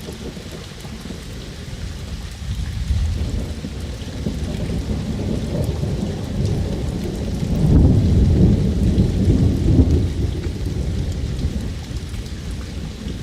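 Rain falling with low rolling thunder; the rumble swells about eight seconds in and then eases.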